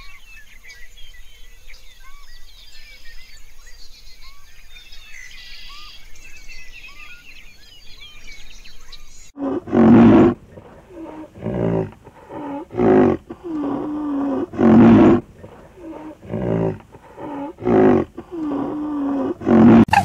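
Small birds chirping and twittering. About halfway through, it gives way to a series of loud, deep calls from a large mammal, roughly one every one to two seconds, each drawn out and bending in pitch.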